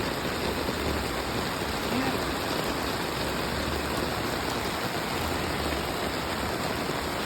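Heavy tropical rain pouring steadily, drumming on an umbrella held overhead.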